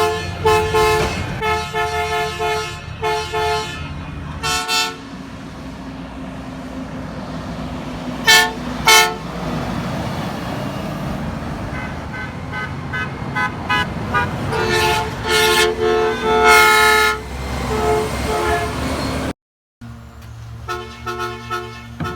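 Truck horns honking: runs of short blasts and a few longer ones, each horn sounding two notes together, over a low engine rumble. The sound drops out suddenly for a moment near the end, then more short blasts follow.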